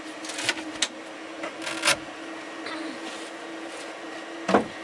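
Items being handled in a top-opening fridge: short rustles and light knocks, then the fridge lid shutting with a thump near the end, over a steady low hum.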